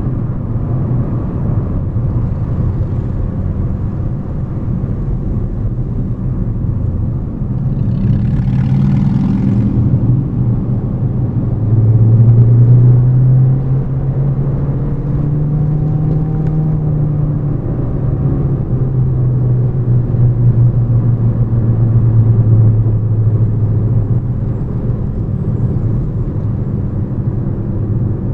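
Hyundai Elantra driving, with a steady engine drone and road noise. The engine note rises and falls through the middle stretch as the car speeds up and slows, and there is a brief hiss about eight seconds in.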